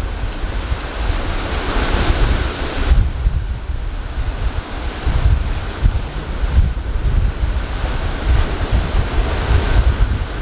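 Ocean surf breaking and churning as whitewater, a steady rushing hiss, with wind buffeting the microphone in a gusty low rumble. The bright hiss is strongest for the first three seconds, then eases.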